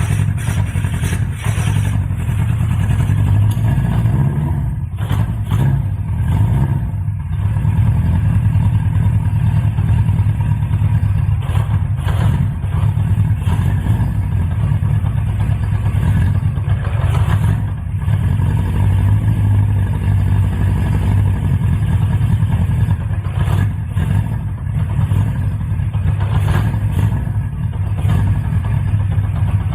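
Honda CB550F's air-cooled inline-four engine running steadily at idle, with its carburettors not yet adjusted.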